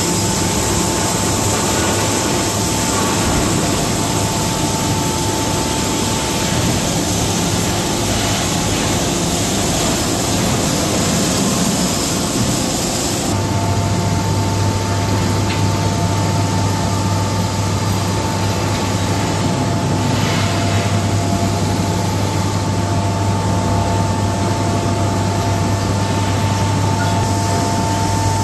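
Steady, loud machinery noise in a steel mill, with a low hum and a high steady whine. About halfway through, the high hiss drops away and the low hum gets stronger.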